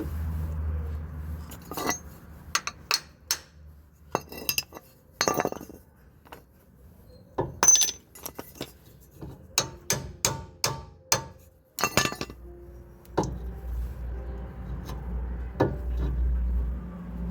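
Irregular sharp metallic clinks and taps from metal tools and brake parts being handled and set down, some in quick runs of two or three.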